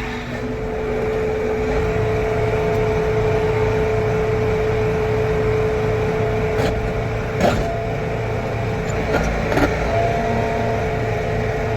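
Tractor engine running steadily with a constant whine while backing up to hitch onto an implement, with a few short clunks in the second half.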